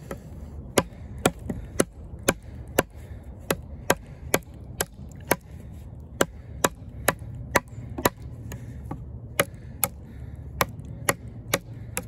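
A Kizer Justice II full-tang D2 steel fixed-blade knife chopping into a gnarly piece of wood, sharp strikes about two a second with a couple of brief pauses.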